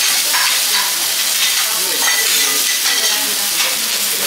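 Beef and vegetables sizzling steadily on a hot teppanyaki steel griddle, with a few short scrapes and taps of a steel spatula against the plate.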